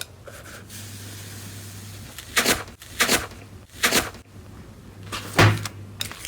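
Slime being handled and pressed: four short, sharp squishing sounds about a second apart, the last the loudest, over a low steady hum.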